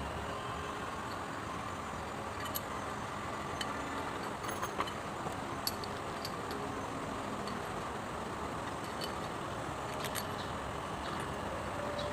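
Scattered light metallic clinks and taps, irregular and a second or two apart, over a steady background rumble.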